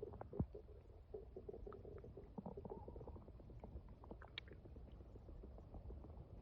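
A stomach rumbling and gurgling: faint, irregular short gurgles and small squelching clicks over a low rumble, with one sharper click about half a second in.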